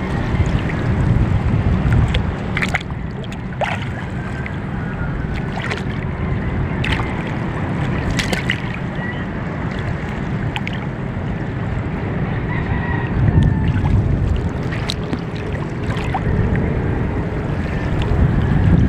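Wind on the microphone and water lapping around a small boat at sea, a steady low rushing noise, with a few short knocks and clicks from the boat scattered through it.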